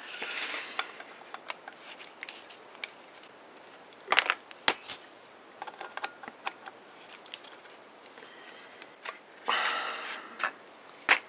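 Screwdriver working the foot screws of a vintage Daiwa 175 fishing reel: small, fairly quiet metallic clicks and scrapes, with two sharper clicks about four seconds in. Brief rustles of handling near the start and again near the end.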